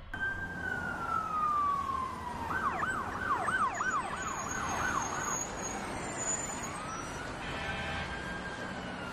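Emergency-vehicle siren: a wail falling slowly for about two seconds, then a fast yelp of about seven quick rises and falls, then the wail rising again and beginning to fall near the end.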